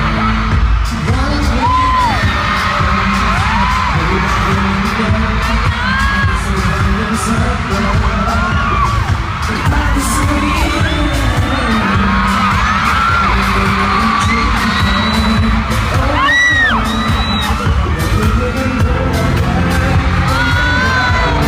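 Pop concert music with a heavy thumping bass playing over a screaming, cheering crowd of fans, many single high-pitched screams rising and falling over the music.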